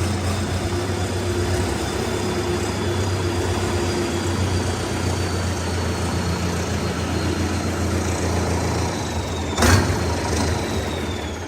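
Sonalika RX tractor's diesel engine running steadily at a low speed, with one sharp knock about ten seconds in. The engine sound fades away near the end.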